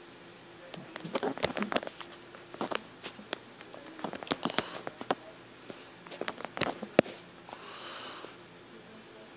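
Irregular clusters of sharp clicks and taps, like handling noise, with a breath or sniff near the end.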